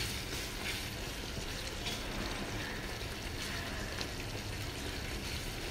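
Thick tomato chutney frying in oil in a pan as a spatula stirs and presses it: a steady sizzle with a few soft scrapes of the spatula.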